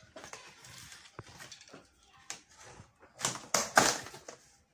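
Plastic strapping bands on a cardboard box being snipped with cutters, with small clicks and rustles. About three seconds in comes a louder, dry rustling scrape as the cardboard flaps are pulled open.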